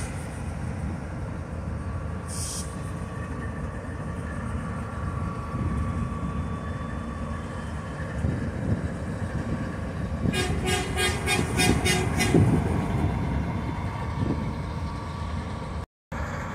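GE Evolution-series diesel locomotives, an ES40DC leading an ES44AH, idling at a standstill with a steady low rumble. A short hiss comes about two seconds in, and about two-thirds of the way through a fast run of about eight ringing strikes lasts some two seconds.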